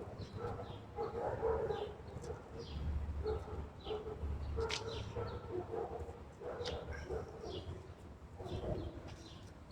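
Small birds chirping over and over, with a lower, broken murmur and a low rumble beneath.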